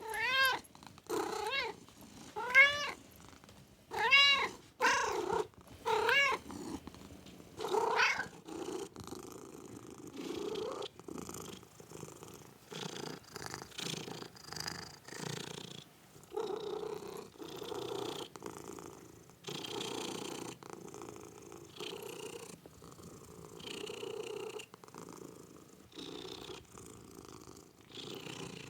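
Domestic cat meowing about seven times in the first eight seconds, each call rising and falling in pitch, then purring steadily in a long run of pulses about one a second.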